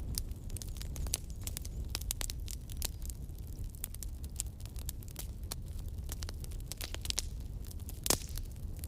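Campfire burning: wood crackling with many irregular sharp pops over a steady low rumble of flames, and one louder pop about eight seconds in.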